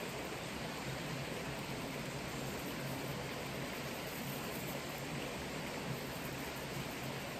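Liquid spraying in a continuous steady hiss, soaking the coop and nest boxes.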